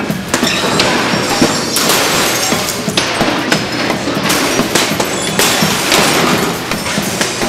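Glass breaking and clinking under repeated hard impacts, over music.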